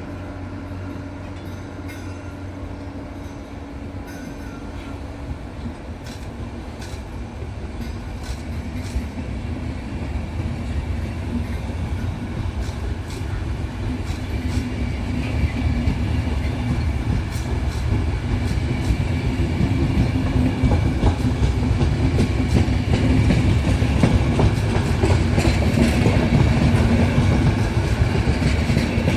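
A train running along the tracks and drawing closer, steadily louder, with a steady hum and the wheels clicking over rail joints.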